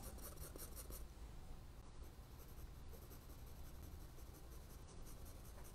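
Faint scratching of a 2B graphite pencil on paper, shading with short hatching strokes.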